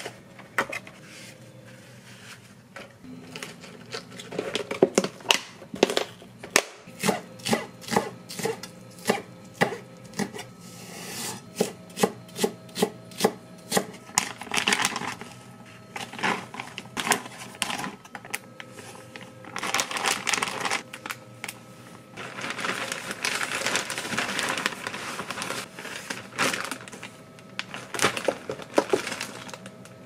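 Kitchen knife chopping green onions on a wooden cutting board, a run of regular strokes at about two a second. This is followed by a plastic zip bag crinkling in stretches as the chopped onions are packed into it.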